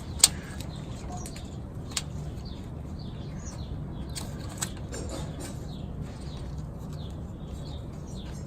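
Handling noises from work on a car engine: a few sharp clicks and light rustling over a steady low hum.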